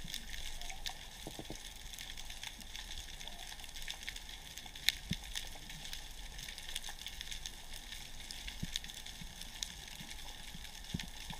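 Underwater ambience: a steady crackling of many fine clicks and a high hiss, with one sharper click about five seconds in.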